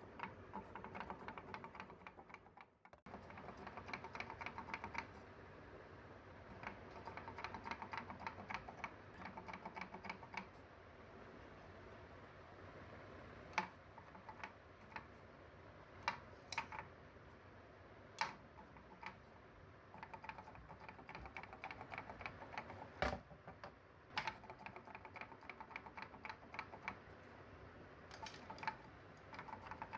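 Hopping wooden kangaroo toy walking down a sloped board, its pivoting wooden legs clacking on the board in runs of rapid clicks with short pauses between them. A few louder single knocks stand out among the clicks.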